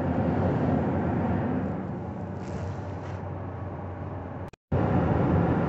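Steady road and engine noise heard inside a moving Toyota's cabin at highway speed. The sound cuts out for a moment about four and a half seconds in, then resumes.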